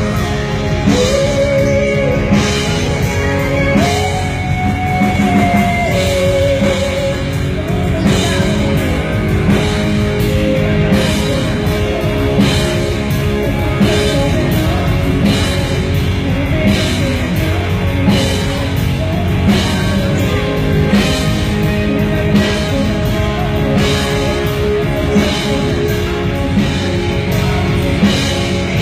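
Rock band playing: electric guitar and a drum kit on a steady beat, with a melody line, sung or played on guitar, gliding in the first few seconds.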